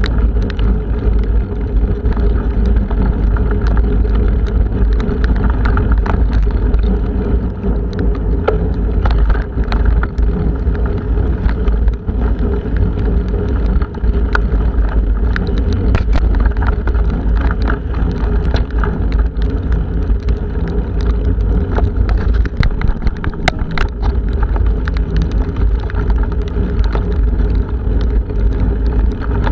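Strong wind buffeting the microphone of a camera on a moving bicycle, a constant deep rumble, with frequent sharp ticks throughout.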